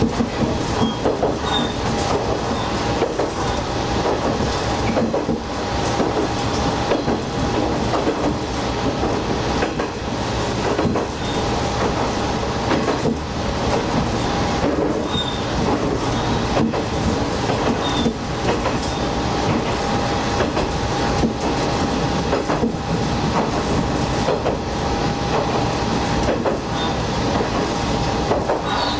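Diesel railcar running along jointed single track, heard from inside the cab: a steady engine and running drone with repeated clickety-clack of the wheels over rail joints.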